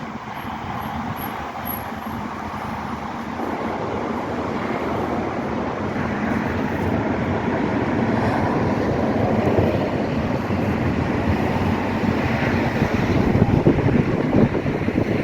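Steady rumble of a moving vehicle, tyre and wind noise mixed, slowly growing louder and rougher toward the end.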